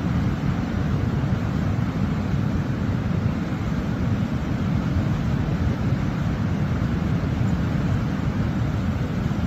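Steady low rushing rumble of water pouring over a waterfall, holding at an even level.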